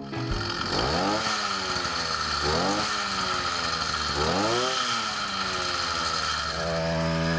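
Small two-stroke bicycle kit engine running on gasoline premixed with 4-stroke motor oil at 16:1. It is revved up and let fall back three times, then settles to a steady idle near the end.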